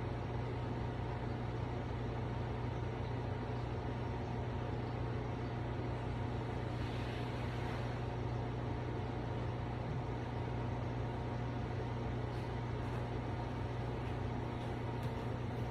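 Wet/dry vacuum cleaner's motor running steadily with a constant low hum.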